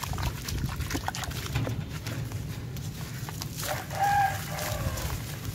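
Hands squeezing and crumbling a soaked sand-cement chunk in a tub of watery grey paste: wet squishing with scattered gritty crackles. A rooster crows once, about four seconds in, louder than the crumbling.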